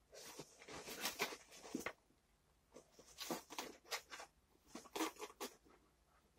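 A small pet scrabbling about inside a cardboard box, making irregular bursts of scratching and rustling on the cardboard and paper, with short pauses between them.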